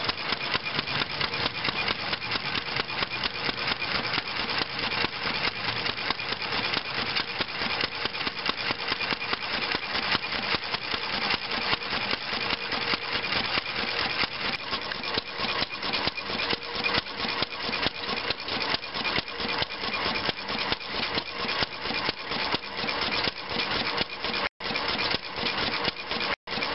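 Cushman gasoline binder engine running steadily, a rapid, even putt-putt of firing strokes at a constant speed. The sound drops out for an instant twice near the end.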